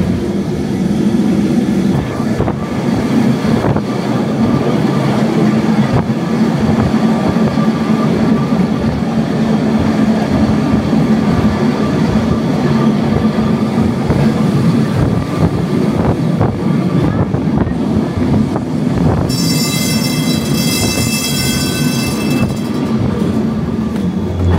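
Lisbon electric tram running on its rails, a steady rumble of wheels and motor. About three-quarters of the way through, a high squeal rings out for about three seconds, typical of tram wheels grinding on a curve.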